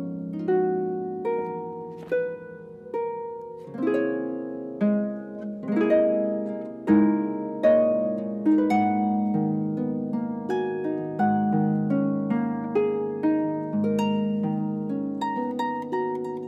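Solo harp playing a contemporary classical piece: plucked notes and chords left to ring and fade. Near the end a quicker run of high notes begins.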